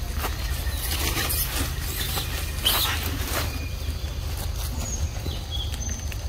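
Scattered rustling and crackling in dry leaf litter on a forest floor, with no calls, over a steady low rumble.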